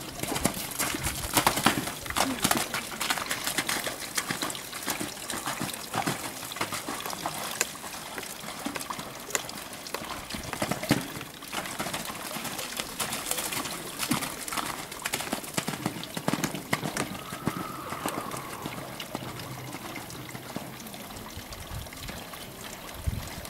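A horse cantering and jumping around a wet sand arena: irregular hoofbeats, with splashing in the soaked, puddled footing.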